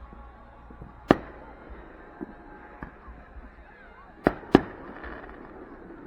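Fireworks going off: three sharp bangs, one about a second in and two in quick succession a little past four seconds, each with a short echoing tail.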